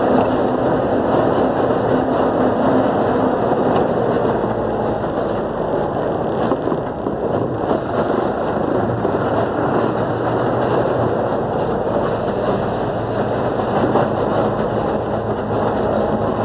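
A bus driving through town streets: its engine runs under steady, loud road and tyre noise. The low engine note drops a few seconds in.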